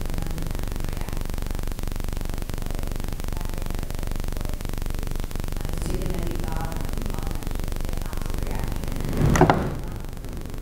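Faint speech from someone far from the microphone over a steady low room hum, with one louder spoken burst about nine seconds in.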